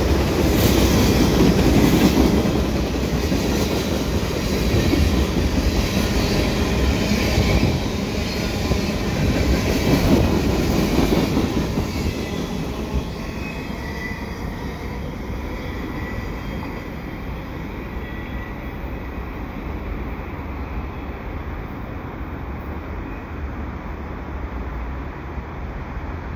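Freight train's last cars rolling past: steel wheels clattering over the rail joints over a steady rumble. After about twelve seconds the sound fades to a lower, steadier rumble as the end of the train pulls away.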